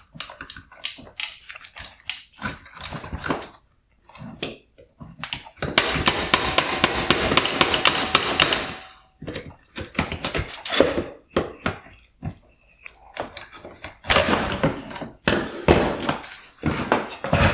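Plastic clicks, knocks and rattles from needle-nose pliers squeezing the locking tabs of a headlight projector's mounting bracket and working the bracket loose inside the plastic housing. It includes a quick run of clicks lasting a few seconds in the middle and another busy stretch near the end.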